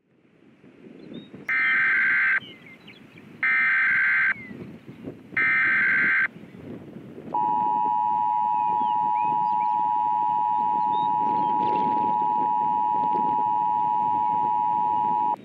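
Emergency Alert System broadcast: three short bursts of digital data header, each about a second long, then a steady attention tone held for about eight seconds that cuts off abruptly. It announces a National Weather Service flash flood watch.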